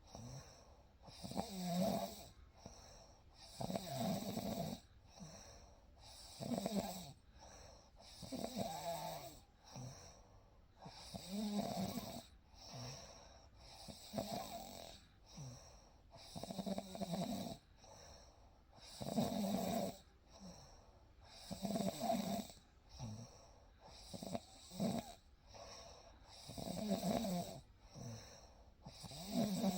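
A sleeping person snoring in a slow, regular rhythm, about one snore every two and a half seconds, with softer breathing between snores.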